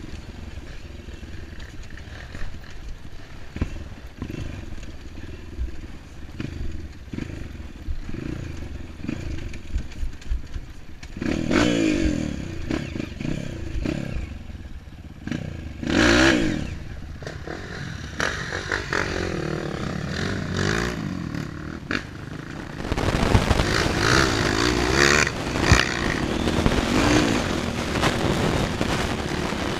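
Dirt bike engine on a rough trail, revving up and falling back as the rider works the throttle, with the bike's clatter over the bumps. From about two-thirds of the way in it gets louder and busier, with other trail bikes running close by.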